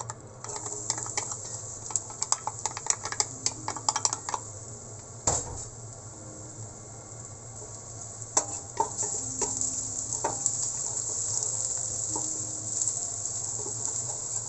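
Minced garlic sizzling in hot annatto oil in a stainless steel pot, the sizzle starting as the garlic goes in and holding steady while it sautés. Over it, a wooden spatula clicks and scrapes against the pan as it stirs, with a flurry of taps at first and one sharp knock a few seconds in.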